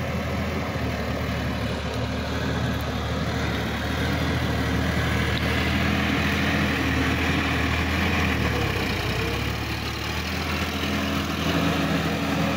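Sonalika DI-50 RX tractor's diesel engine running steadily under load while it pulls a rear tillage implement through a flooded paddy field. The engine note dips and shifts briefly about two-thirds of the way through.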